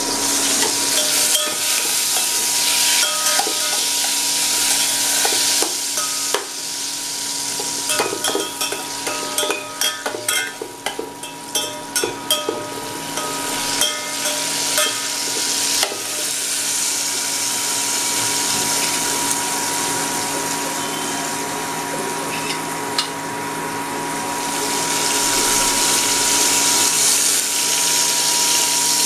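Tomatoes and whole spices sizzling in hot oil in a steel pot, with a steady hiss throughout. Partway through comes a run of sharp clicks and scrapes as a steel ladle stirs against the pot.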